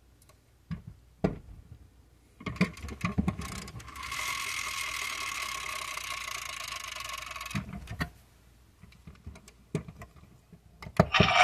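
Clicks and rattles of a die-cast Harley-Davidson trike model being handled, then its built-in sound module plays a recorded motorcycle engine sound through a tiny speaker for about three and a half seconds. The sound is thin and tinny, with no bass, and stops suddenly, followed by a few more clicks.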